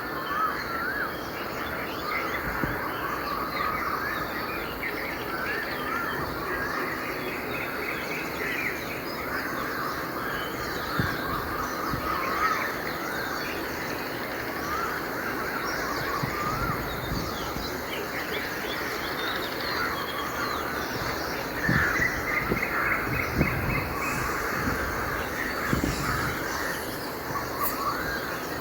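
Many birds singing and chirping at once in a dawn chorus: dense, overlapping short calls and trills.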